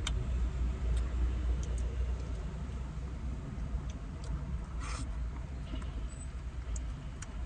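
Steady low rumble of a car, heard from inside the cabin, with a few faint clicks and a short rustle about five seconds in as plastic spoons dig at a paper Frosty cup.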